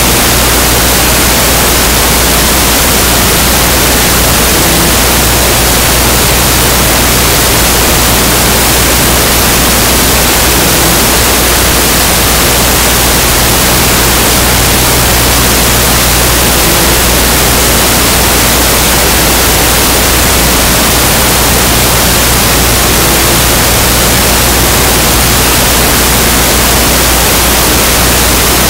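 Loud, steady hiss of static noise with a low electrical hum underneath, unchanging throughout; no game sounds come through it.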